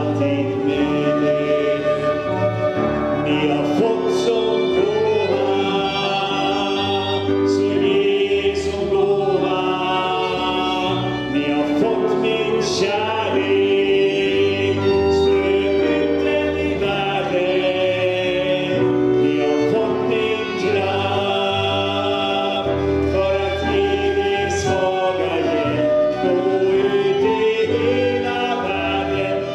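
A Swedish worship song sung by voices, accompanied by flute, violin and bass, playing steadily throughout.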